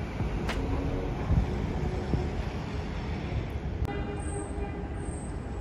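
City street traffic noise: a steady low rumble of vehicles, with a few sharp clicks.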